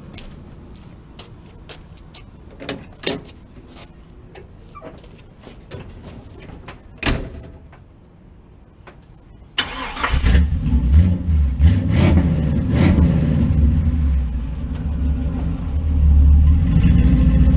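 A few scattered clicks and knocks, then a car engine starts about ten seconds in, rising for a few seconds before settling into a loud, steady low rumble.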